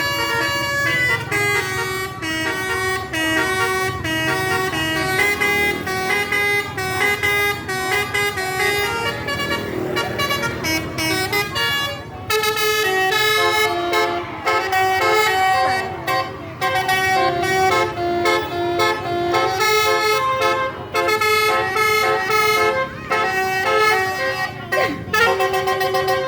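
Bus 'telolet' horn, a set of multi-tone air horns, playing a quick tune of stepped notes, with a brief break about twelve seconds in.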